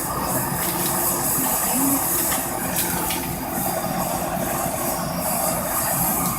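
Gas flame burning with a steady hiss, heating a mold before molten silver is poured.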